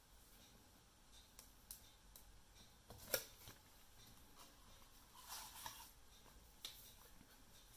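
Faint handling noises over near silence: a sharp light tap about three seconds in, a brief scratchy rustle a little after five seconds, and another tap near the end, as paper pattern pieces and a plastic set square are moved about on the work surface.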